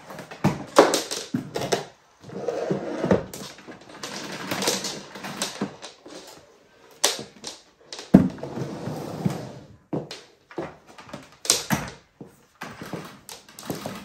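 Irregular clicks and knocks of a canister vacuum's plastic hose and metal wand being handled, mixed with the clack of high heels on a laminate floor. Short rustling stretches fall between the knocks, and there is no steady motor hum.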